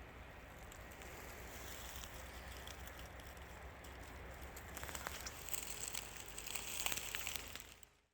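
Rustling and crackling with many small clicks over a faint steady hiss, growing busier and louder about five seconds in, then fading out abruptly near the end.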